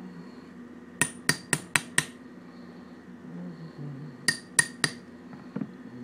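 Hammer tapping a punch rod set in a fired .410 shotgun hull to drive out the spent primer: five quick sharp taps, then three more a couple of seconds later.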